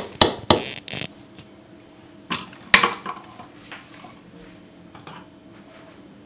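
A utensil knocking and scraping berry purée out of a plastic blender cup, then two sharp clacks a little over two seconds in, the second the loudest, followed by a few faint clicks.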